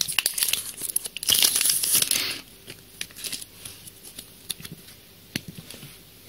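Foil wrapper of a Yu-Gi-Oh! booster pack crinkling and tearing as it is pulled open and the cards are slid out. The noise is loudest for the first two and a half seconds, then only a few light clicks of the cards being handled.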